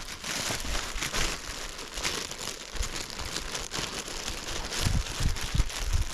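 Continuous crinkling and rustling made up of many small crackles, with a few low thumps about five seconds in.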